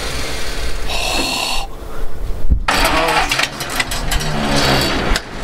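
Ford flathead engine cranking over on its starter without catching, with a short break and a click about halfway through before the cranking resumes.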